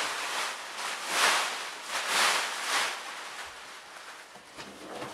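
Rustling and swishing as a new mattress is dragged and shifted into place on a slatted bed frame, with its plastic wrapping crinkling. There are several loud swishes in the first three seconds, then quieter shuffling.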